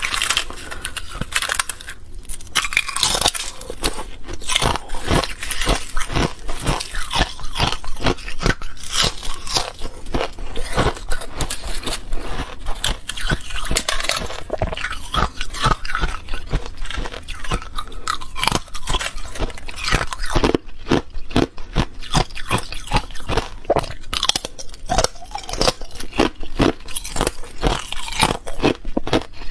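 Thin balloon ice being cracked apart by hand and crunched in the mouth, close to a clip-on microphone: a dense, continuous run of sharp cracks and crunches.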